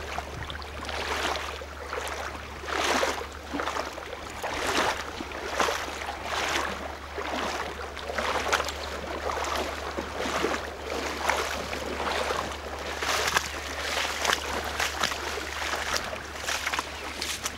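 A person's steps wading through shallow lagoon water and into wet grass, each step a short splash and swish, one or two a second.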